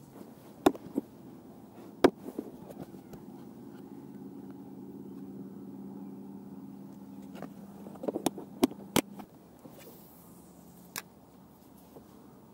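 Sharp clicks and clatter of fishing gear being handled: a spinning reel and a clear plastic tackle box of soft plastic worms, with the loudest click about two seconds in and a quick run of clicks near the end. Under them a faint low engine hum swells slightly and fades out about nine seconds in.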